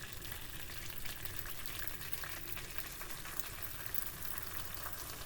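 An egg frying in melted butter in a pan: a steady sizzle with small crackles.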